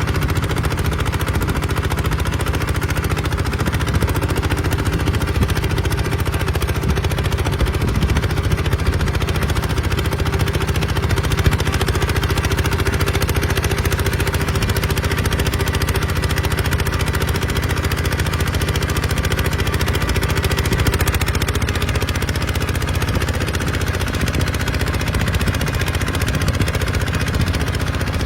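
Kubota RT140 single-cylinder diesel engine running steadily while plowing, with a fast, even chugging.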